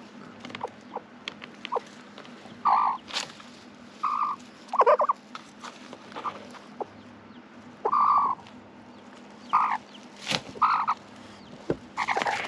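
Broody hen clucking in short, low calls, about six of them at irregular intervals a second or two apart. A sharp click comes about ten seconds in.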